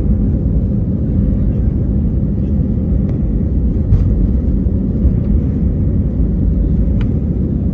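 Airplane taking off: a steady, loud low rumble, with two faint clicks about four and seven seconds in.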